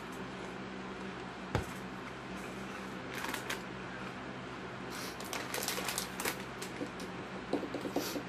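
Crackly rustling of a Hot Cheetos bag and crunching of the chips. It comes as a short patch about three seconds in and a run of quick crackles from about five seconds in, with a single thump a second and a half in, over a steady low hum.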